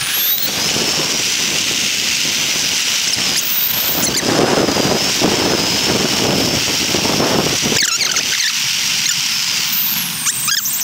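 Electric skateboard's motor whining at a steady high pitch under load while climbing a steep hill, over the rush of its wheels on rough asphalt. The whine rises at the start and drops away near the end.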